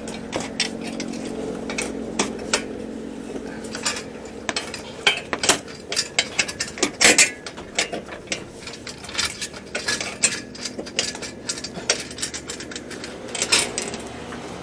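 Irregular metallic clicks and clanks of tools and mounting hardware being handled, with a faint steady hum underneath. The clicks cluster loudest about seven seconds in and again near the end.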